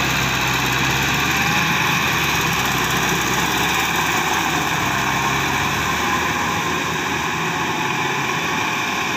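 Kubota farm tractor's diesel engine running steadily under load as it pulls a rotary tiller through wet paddy mud, its deeper tones falling away and the sound growing slightly fainter over the last few seconds as it moves off.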